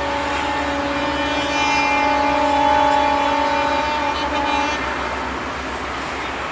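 A train horn sounds one long steady blast, ending about four and a half seconds in, over the low rumble of passenger coaches running on the track.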